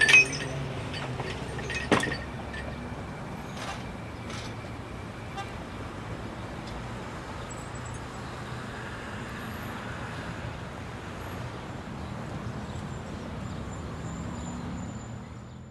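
Street traffic ambience, a steady hum of passing vehicles, with a couple of sharp knocks near the start, the louder about two seconds in; it fades out at the end.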